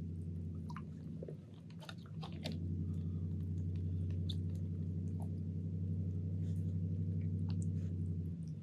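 A drink container being picked up and opened, with a few short clicks and crackles in the first couple of seconds. Under it runs a steady low hum that grows louder about two and a half seconds in and is the loudest sound.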